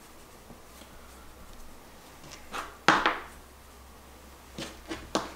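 Garlic seasoning shaker being shaken and tapped over meat: a few light taps, with one sharper knock about three seconds in.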